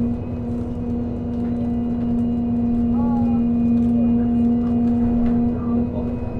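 Bus in motion: the engine and drivetrain run with a steady, even-pitched whine over a low rumble.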